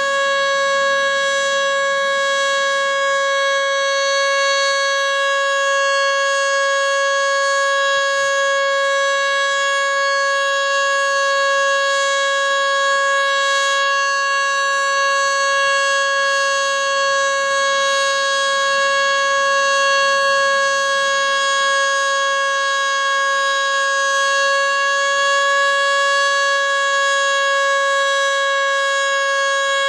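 Federal Signal Model 2 electromechanical outdoor warning siren sounding a steady tone during its routine test, held at one constant pitch.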